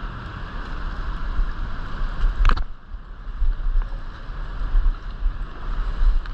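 Wind buffeting the microphone in a fluctuating low rumble over the steady rush of river water, with one sharp knock about two and a half seconds in.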